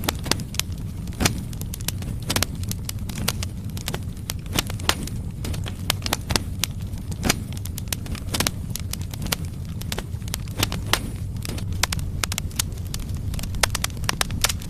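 Firewood logs burning in a fireplace, crackling with frequent irregular sharp pops over a steady low rumble of the flames.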